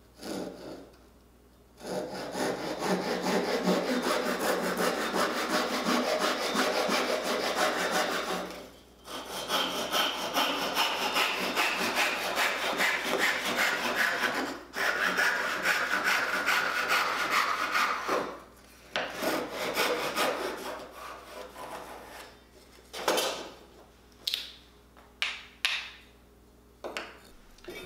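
Hand saw cutting through a small wooden block in quick, even back-and-forth strokes. The strokes come in three long runs with brief pauses, then break into scattered short strokes as the cut is finished.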